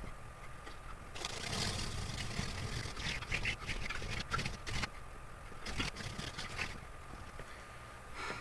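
Hand-drill friction fire: a wooden spindle twirled between the palms grinds in the notch of a wooden hearth board, a dry scraping rub in two bouts, the first about four seconds long and the second about a second long.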